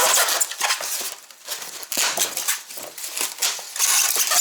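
Packing material rustling, crinkling and scraping in irregular bursts as an electric grinder is pulled out of its box.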